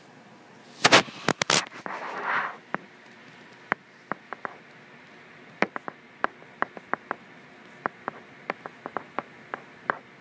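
Stylus tip tapping and clicking on a tablet's glass screen during handwriting: a cluster of louder clicks about a second in, a brief rustle, then a string of light, sharp ticks at irregular spacing.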